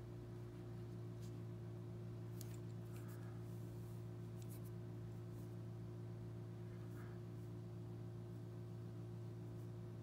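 Quiet, steady low hum with a few faint, brief clicks scattered through it.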